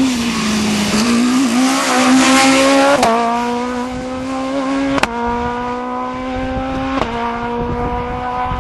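Rally car accelerating hard away through the gears. A rush of noise comes with the engine over the first few seconds. Then three upshifts follow about two seconds apart, each marked by a sharp pop and a drop in engine pitch, with the pitch climbing slowly again between shifts.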